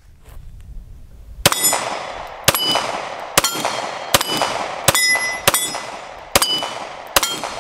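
Glock 45 MOS 9mm pistol firing eight shots at a steady pace, about one a second, starting about a second and a half in. Each shot is followed by the ring of a steel target plate being hit, the pitch of the ring changing from hit to hit.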